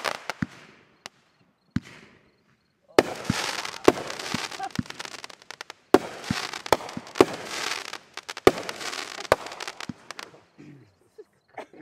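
Aerial fireworks display: about ten sharp booms of bursting shells, several of them followed by a couple of seconds of dense crackling.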